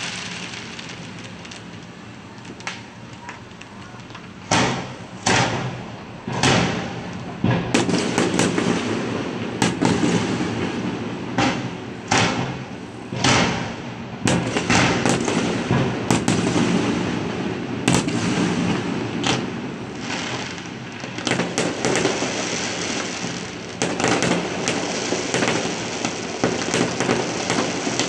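Aerial fireworks shells bursting: after a few quieter seconds, separate sharp bangs begin about four seconds in, then run into a dense, rapid string of bangs and crackling.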